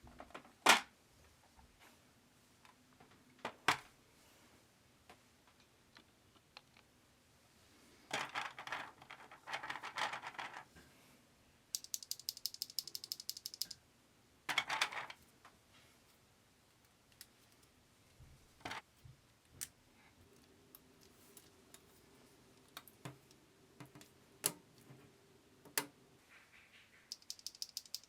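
Scattered sharp clicks and short clattering bursts of small plastic and metal keyboard parts being handled during a mechanical keyboard build, with a quick run of rapid ticks near the middle.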